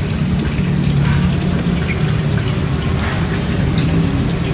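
Wind noise: a steady rush and low rumble from the breeze buffeting the microphone, with a faint steady hum underneath.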